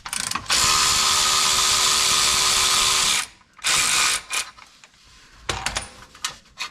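A cordless power tool spinning out a splash-guard bolt: the motor runs steadily for nearly three seconds, gives a short second burst about a second later, then a few ratchet clicks follow near the end.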